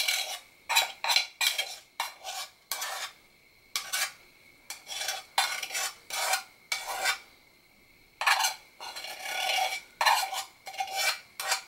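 A spoon scraping cobbler out of a small aluminum dry baking dish: a quick run of short scrapes against the metal, broken by brief pauses.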